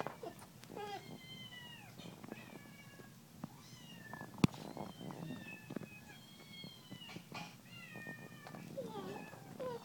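Kittens meowing through laptop speakers: a steady string of short, high, thin calls that fall in pitch and overlap one another. A single sharp click about four and a half seconds in.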